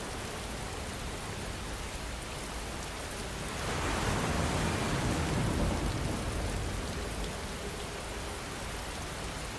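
Steady rain falling, a continuous hiss of drops, with a louder rush swelling up about four seconds in and easing off by about seven seconds.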